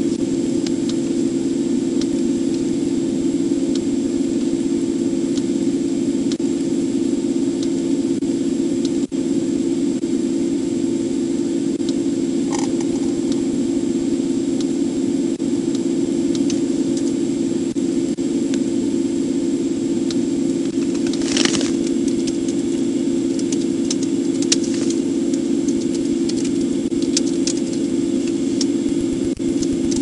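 Steady hum inside a stationary patrol car with its engine running, heard through the in-car microphone, with a faint high whine over it. Scattered small clicks and one short hiss about two-thirds of the way through.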